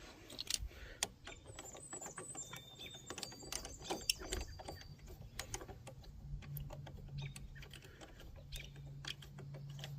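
Faint, irregular metallic clicks and taps as the front brake caliper's mounting bolts are threaded in and started by hand. A low steady hum comes in during the second half.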